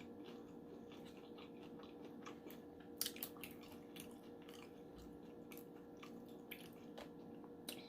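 Close-up mouth sounds of someone chewing fried food, faint, with a few short crunches and clicks, over a low steady hum.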